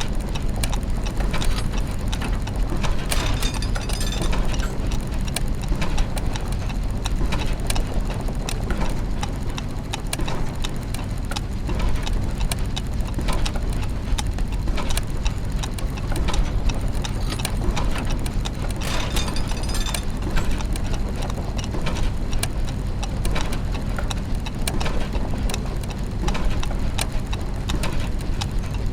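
Layered clockwork mechanisms and gears running steadily: a dense mix of ticking, clicking and ratcheting over a low mechanical hum.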